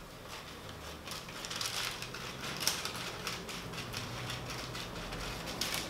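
Scissors cutting through a sheet of baking parchment, the stiff paper crackling and crinkling in a run of sharp, irregular crackles as it is cut and handled.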